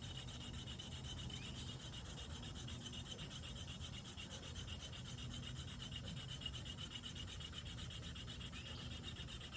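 Hand-drill fire-by-friction set: a wooden spindle is spun back and forth between the palms into a notch in the hearth board, giving a steady dry rubbing sound. It is a run under light pressure while the board and spindle heat up and smoke toward an ember.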